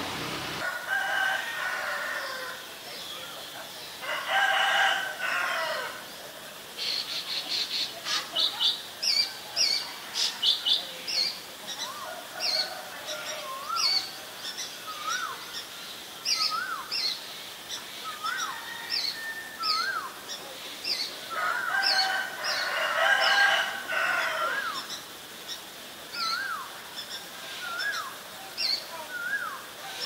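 A rooster crows three times, over small birds chirping repeatedly. A short rising-and-falling whistle repeats about once a second in the second half.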